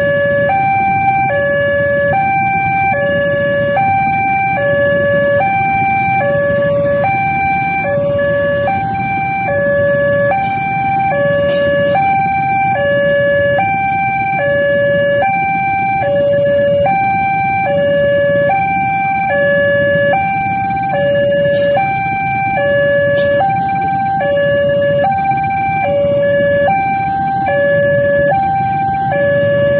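Railway level-crossing warning alarm sounding continuously: an electronic two-tone signal, a higher and a lower tone alternating at an even pace. Under it is the low rumble of motorcycle engines idling in the queue at the crossing.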